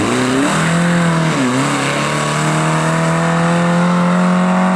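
Rear-engined historic rally car's engine pulling hard through a bend and away. The revs dip sharply right at the start and again about a second and a half in, then hold high and climb slowly.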